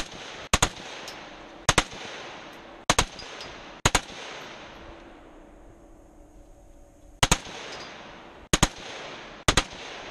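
AK-pattern rifle firing single shots, about one a second: four shots, a pause of about three seconds, then three more.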